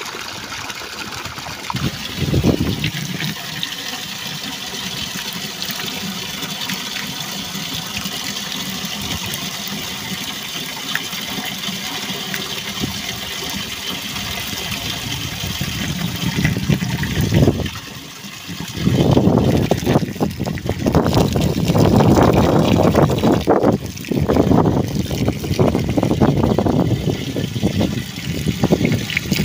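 Water running in a strong steady flow, with louder, irregular splashing and gushing through the last third.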